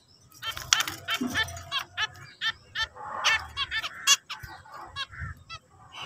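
Zebra finches calling and singing: a fast string of short, repeated notes from several birds, after a brief lull at the start.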